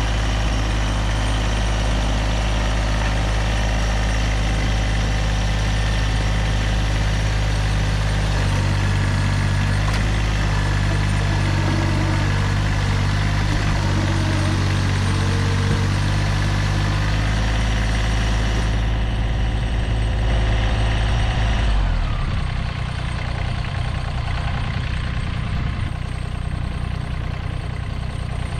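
Massey Ferguson GC2300 sub-compact tractor's diesel engine running steadily while its front loader raises the corner of a building. Its note shifts about eight seconds in, then drops to a lower, quieter run about 22 seconds in.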